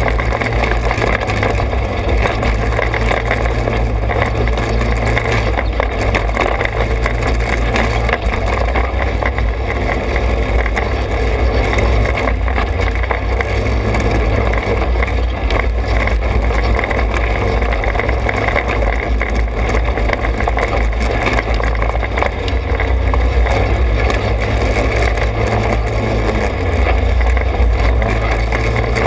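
A Trailmaster 200 XRX's small engine runs steadily as the vehicle moves along a dirt trail, with a heavy low rumble throughout.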